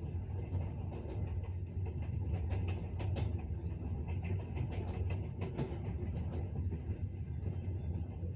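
Moving train: a steady low rumble with the wheels clicking and knocking over the rails, the clicks coming in irregular clusters.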